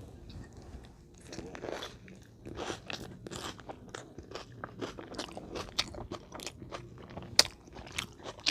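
Close-miked mouth sounds of a person eating a hoagie sandwich: wet chewing and crunching bites with irregular smacks, a few a second, and one sharper click a little past seven seconds in.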